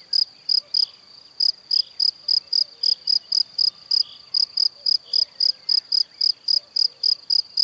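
A cricket chirping steadily in a regular train of short, high chirps, about four a second, pausing briefly about a second in and again around the middle.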